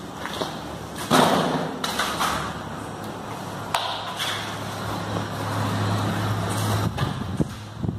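A heavy thud about a second in, then scattered lighter knocks and clicks, with a steady low hum in the second half.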